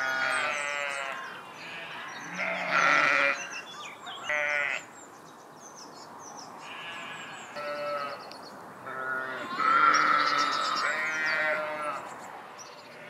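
A flock of sheep and lambs bleating: about eight separate calls from several animals, some higher-pitched than others, with short pauses between them.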